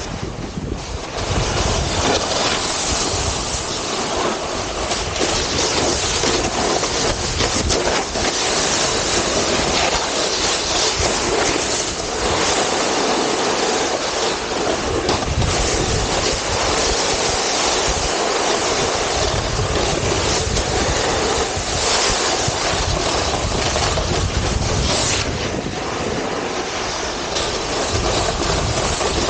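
Wind buffeting the microphone and a snowboard sliding and scraping over packed snow: a steady rushing noise with gusty low rumbles.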